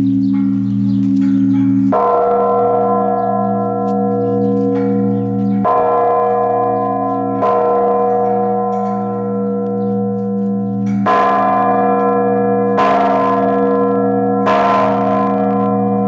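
Large church bell, newly consecrated and hung on a low temporary frame, struck about six times at uneven intervals by its clapper pulled with a rope. Each stroke rings on over a steady deep hum.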